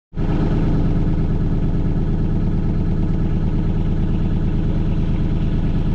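A Gator utility vehicle's engine runs steadily close by with an even pulse. It cuts in suddenly at the very start.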